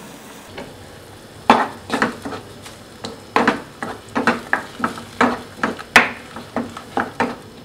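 Wooden spatula stirring tomato puree into fried onions in a nonstick frying pan: a run of scrapes and knocks against the pan, about two a second, starting about a second and a half in.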